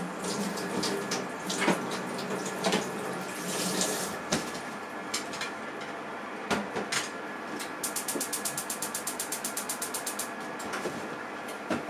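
Toshiba microwave oven range running in oven mode: a steady hiss and hum, scattered sharp clicks and crackles, and about eight seconds in a fast, even run of ticks lasting a couple of seconds.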